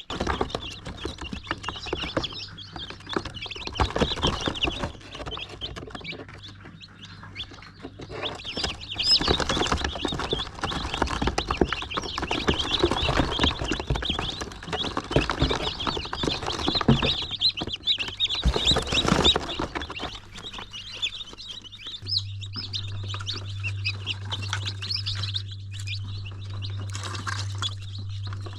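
Chickens clucking and chirping, with many short chirps and clicks. A steady low hum grows louder about three-quarters of the way through.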